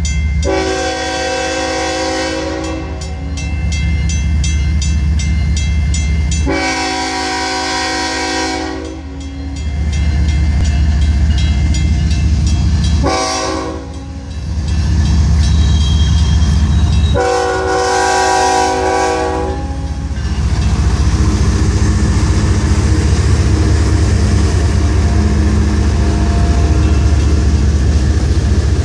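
CSX freight train's diesel locomotive sounding its chime air horn in the grade-crossing pattern: long, long, short, long. After the last blast, about 20 seconds in, the locomotives' diesel engines and wheels run loudly through the crossing. A crossing bell dings steadily under the first two blasts.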